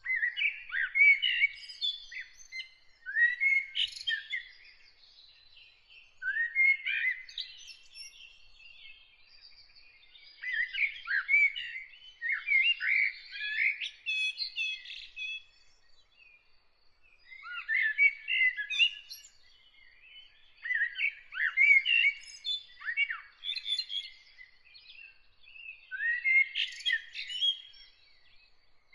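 A songbird singing in warbled, twittering phrases, each a few seconds long, with short pauses between them, about seven phrases in all.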